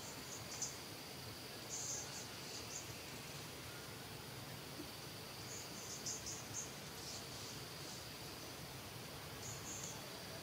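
Faint forest insect chorus: a steady high-pitched drone with short bursts of higher chirping now and then.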